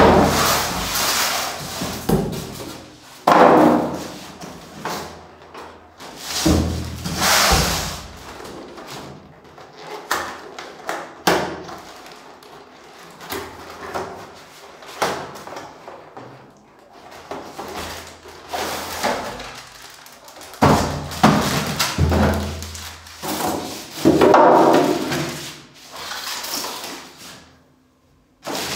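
Plastic wrap crinkling and packaging being handled in irregular bursts, with a few knocks and thuds as the boxed oven and packing pieces are moved.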